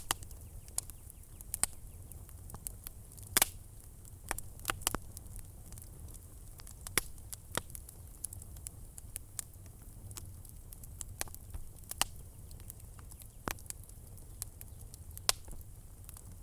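Wood fire crackling in a fireplace: scattered sharp pops and snaps at irregular intervals over a faint low hum.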